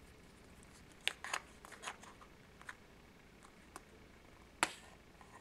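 A FRED ration can opener cutting into the tin lid of a vintage B-3 ration can: a few faint, sharp metal clicks and scrapes, scattered, the strongest about a second in and near the end.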